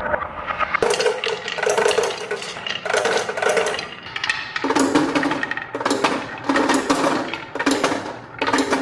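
Marbles rolling and clattering down a HABA wooden marble run: dense rapid clicks as they knock along the track, with a rolling hum in stretches of half a second to a second.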